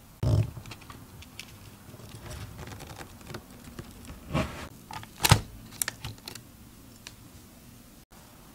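A long knife pressed down through a dense, fudgy brownie slab on parchment paper: a thump as the blade goes down, soft crackling and paper rustling, then two louder knocks around four and five seconds in and a few light clicks as the blade meets the board underneath.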